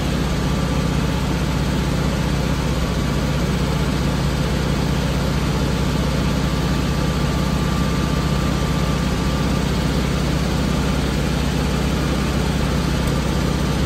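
1954 Volkswagen Beetle's air-cooled flat-four engine idling steadily, heard from inside the cabin, still warming up after a cold start.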